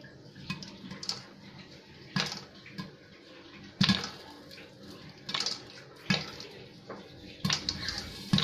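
Popcorn kernels popping in a lidded pot: sharp, irregular pops about once a second over a steady sizzle of hot oil.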